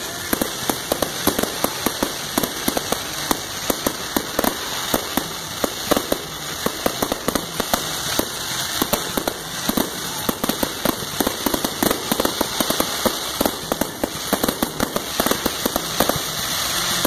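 Aerial fireworks bursting overhead: a dense, unbroken crackle of sharp pops, several a second, some much louder than others.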